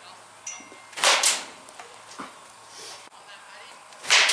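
Baseball bat striking pitched balls during batting practice. There is a sharp crack about a second in, followed quickly by a second smack, and a louder crack of bat on ball near the end.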